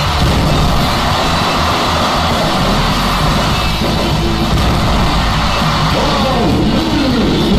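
Loud, continuous music with a heavy bass, with a few falling pitch glides near the end.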